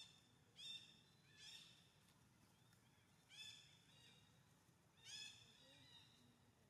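Young long-tailed macaques squealing during a play fight: about five short, high-pitched squeals, one to two seconds apart.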